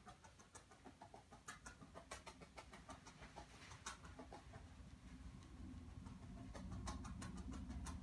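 Felting needle jabbing repeatedly through wool roving into a foam block: faint, irregular soft clicks, several a second. A low hum comes up in the second half.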